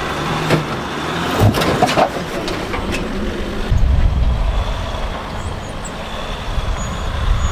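An off-road 4x4's engine running under load as it crawls over rocks, with a few sharp knocks about one and a half to two seconds in. The engine grows louder about four seconds in.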